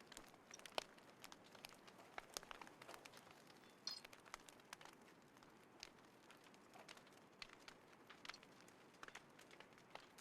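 Small wood fire crackling faintly, with irregular soft pops and snaps.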